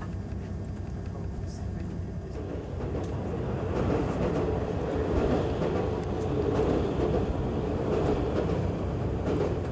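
Diesel limited-express train running along the track, wheels rumbling and clattering on the rails, heard from its own open window; it grows louder about three seconds in as the train rounds a curve.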